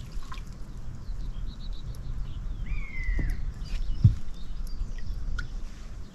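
Light water drips and small splashes around a landing net as a hooked pike is drawn in, over a low rumble of wind and handling noise. A short falling bird chirp about three seconds in, and one dull thump just after four seconds.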